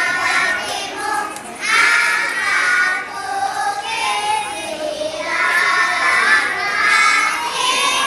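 A group of young kindergarten children singing together in short phrases, with brief breaks between them.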